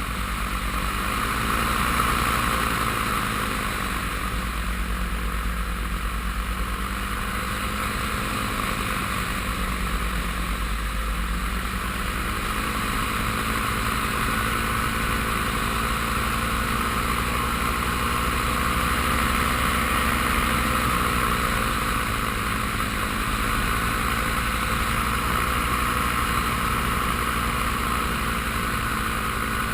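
Paramotor engine and propeller running steadily in flight, a continuous drone whose pitch drifts slowly up and down with the throttle.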